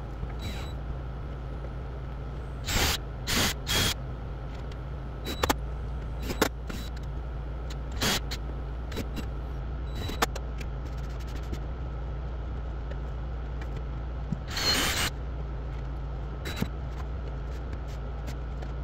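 Steady low machine hum with a faint high tone, broken by about five short hissing scrapes, the longest a little before three-quarters of the way through, and a few light clicks and knocks.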